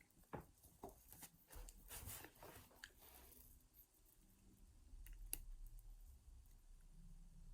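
Faint metallic clicks and scratching from a lock pick and tension wrench working the pins of a small all-brass four-pin cabinet lock, with one sharper click about five seconds in.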